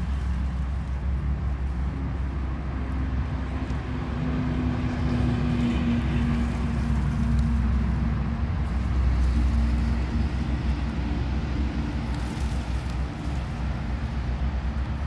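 An engine running steadily with a low rumble, its hum growing louder for several seconds in the middle.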